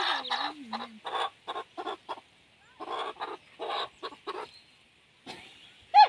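A chicken squawking in a string of short, harsh calls, in two runs with a brief pause between them and one more call near the end.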